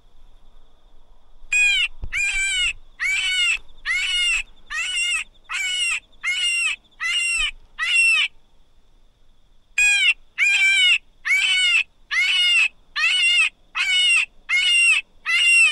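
A predator call used for fox hunting, sounding a run of short, high squeals at about one and a half a second to lure foxes in. It starts about a second and a half in, stops for a second or so past the middle, then starts again.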